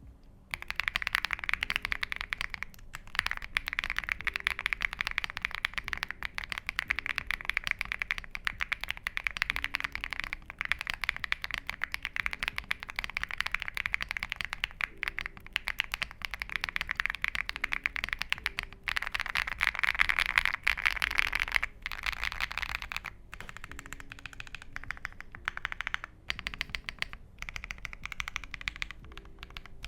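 Continuous fast typing on a Dark Alien R65 mechanical keyboard with tactile switches and thick PBT dye-sub keycaps: a dense stream of keystroke clacks, broken by a few brief pauses.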